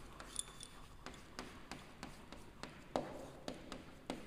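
Chalk writing on a chalkboard: faint, irregular taps and scratches of chalk strokes, about three a second.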